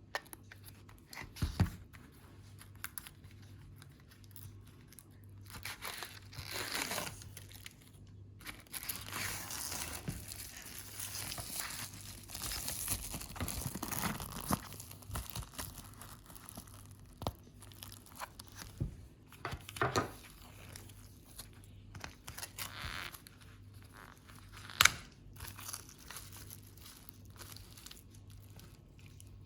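Packaging of chicken breast fillets being handled and opened: crinkling and tearing, with scattered sharp knocks, the loudest about 25 seconds in.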